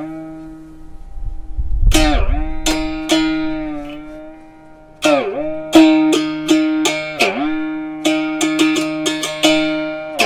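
Single-string bamboo-and-gourd drone instrument with a wooden soundboard, plucked on one note. Each pluck makes a quick dip and return in pitch. A few slow plucks are followed, about five seconds in, by a steady rhythm of about three plucks a second.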